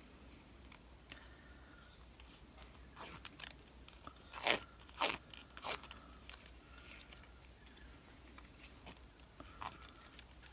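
Scored paper quilling strip being bent and shaped between the fingers: faint, scattered crisp crackles and clicks, bunched in the middle.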